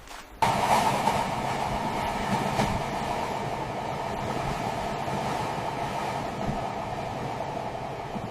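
Steady rumbling noise that starts suddenly about half a second in and then runs on evenly, easing off slightly toward the end.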